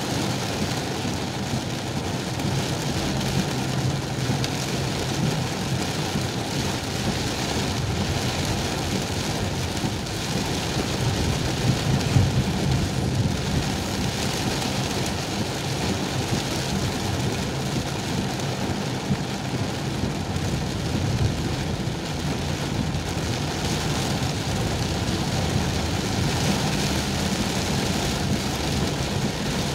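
Very heavy rain falling on a car's roof and windshield, heard from inside the cabin, as a steady wash of noise over the low hum of the car moving along a flooded road.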